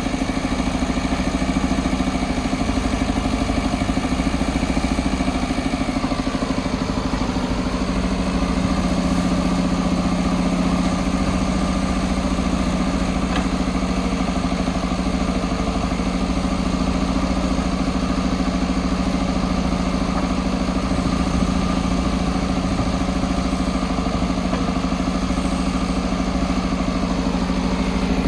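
JCB backhoe loader's diesel engine running steadily under work. Its note shifts slightly about six seconds in.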